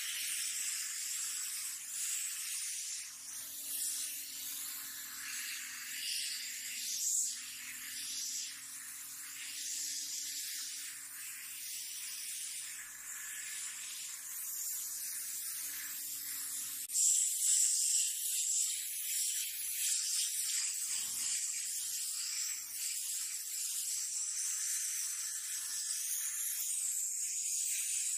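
Small gravity-feed paint spray gun hissing as compressed air sprays paint onto a wall, the hiss rising and falling. A faint low hum lies beneath it until about two-thirds of the way through, where the hum stops and the hiss grows louder.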